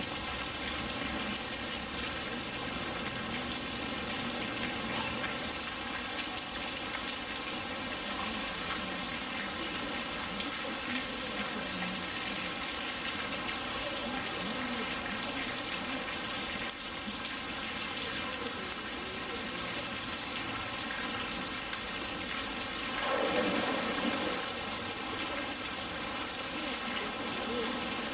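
Steady rushing of running water, most likely water flowing into the polar bear enclosure's pool, with a brief louder surge about twenty-three seconds in.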